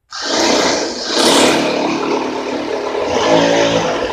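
Handheld electric drill boring a hole into the wall. It starts abruptly just after the beginning and runs steadily, loud throughout.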